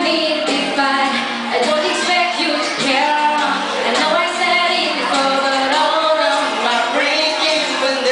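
A live band playing a pop song with a sung lead vocal over the instruments.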